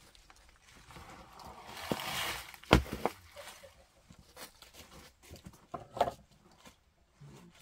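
Dry oak-bark roofing slabs being shifted on a pile: a rustling scrape about two seconds in, then a sharp knock, the loudest sound, followed by scattered lighter clicks and taps.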